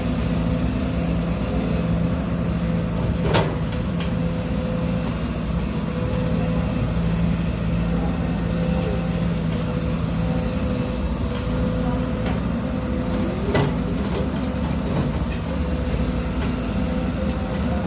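Excavator diesel engine running steadily, with two sharp clanks about ten seconds apart.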